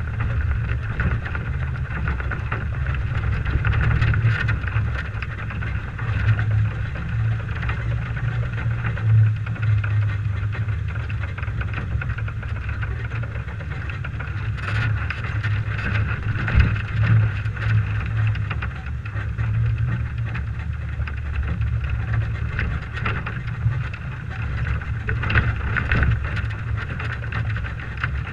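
A 1998 Toyota 4Runner driving slowly over a dirt track, heard from a roof-mounted camera: a steady low engine and wind rumble, with a few short knocks.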